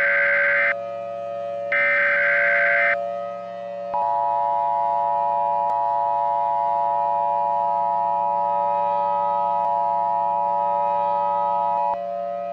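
Emergency Alert System SAME header data bursts: a raspy digital screech ends about a second in and sounds once more for about a second. After a short pause comes the two-tone EAS attention signal, a steady dual-tone held for about eight seconds, which cuts off near the end. This sequence opens the tornado warning alert, over a faint steady low drone.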